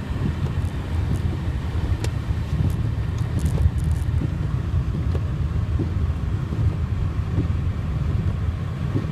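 Steady low rumble of a Honda Ridgeline pickup driving on snow-covered road, its 3.5-litre V6 engine and tyres heard from inside the cab, with a few faint ticks two to four seconds in.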